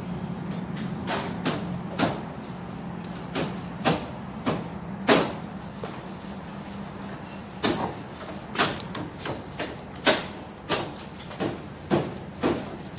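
Irregular rustles and sharp crackles as hands handle star fruit tree leaves and a foam net fruit sleeve, about fifteen in all, over a steady low hum.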